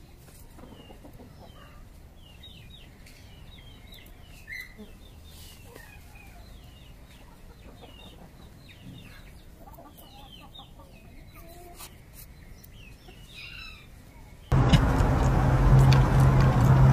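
Faint ambience with many short, high chirping calls scattered throughout. About fourteen and a half seconds in it cuts abruptly to a loud, steady rushing noise with a low hum.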